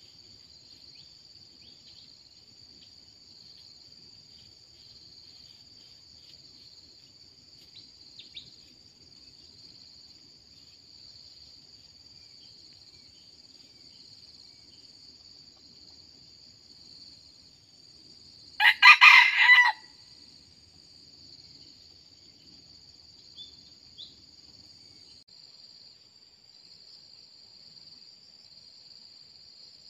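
Red junglefowl rooster crowing once, a short, clipped crow of about a second a little past the middle, over a steady high-pitched drone of insects.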